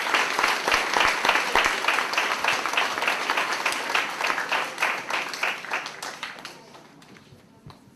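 Audience of students and staff applauding, the clapping dying away about six to seven seconds in.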